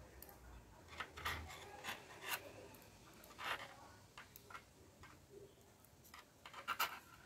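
Double-pointed knitting needles clicking and acrylic yarn rubbing as stitches are knit by hand: faint, irregular small clicks and scrapes, a cluster near the end.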